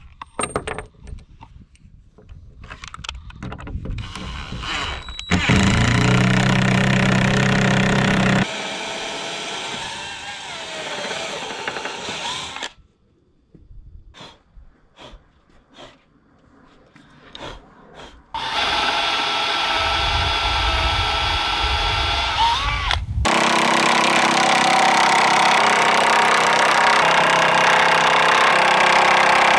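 A cordless drill boring into the wooden boards of a door in several runs: a short loud burst about five seconds in, then a longer run in the second half with a steady motor whine. Between the runs are quieter knocks and handling sounds.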